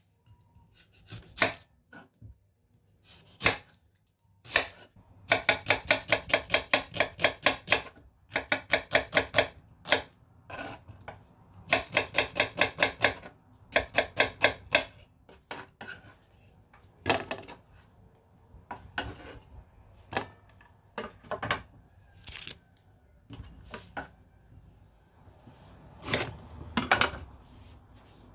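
Kitchen knife chopping vegetables on a wooden cutting board: four quick runs of even strokes, about four or five a second, with scattered single knocks of the blade on the board before and after.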